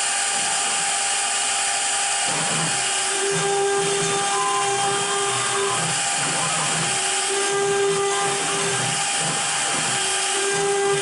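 CNC router spindle running and cutting wood, a steady high whine. A lower hum comes and goes several times over the cut.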